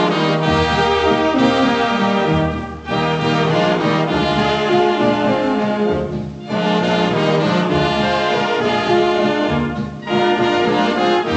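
Instrumental interlude of a waltz played by a dance orchestra with brass prominent, from an old 78 rpm shellac record; the music runs in phrases with short breaks about every three and a half seconds.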